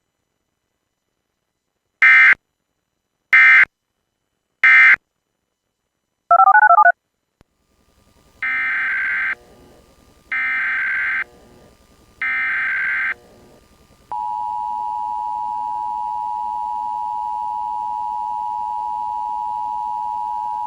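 Emergency Alert System tones: three short screechy SAME end-of-message data bursts, a brief warbling blip, then three longer SAME header bursts that open the next alert. About two-thirds through, the steady two-tone EAS attention signal starts and holds.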